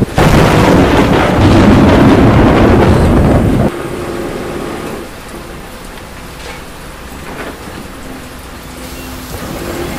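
Loud rolling thunder over falling rain, which breaks off abruptly a little over a third of the way in, leaving a steady, quieter rain hiss.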